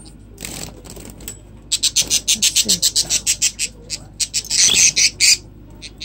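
Budgerigars fluttering and calling: a rapid, even run of about nine sharp strokes a second for about two seconds, then a louder harsh burst near the end.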